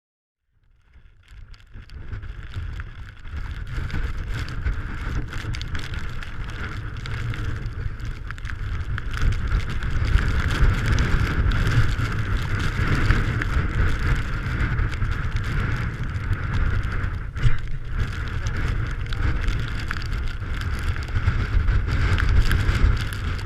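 Strong wind buffeting the microphone: a heavy low rumble with a steady hiss above it, rising in from silence over the first couple of seconds.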